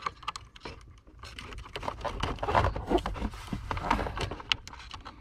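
Small plastic clicks, taps and scraping as a bulb holder is worked and twisted into the back of a gauge cluster, busiest in the middle of the stretch.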